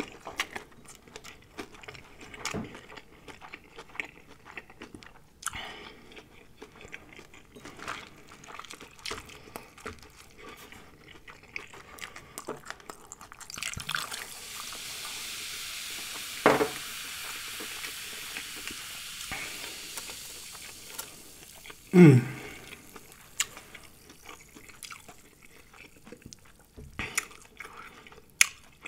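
Close-miked chewing of fried shrimp, with wet mouth clicks and crunches. About halfway through, bottled water is poured into a plastic cup of ice for several seconds, a steady hiss, followed a little later by a short falling vocal sound.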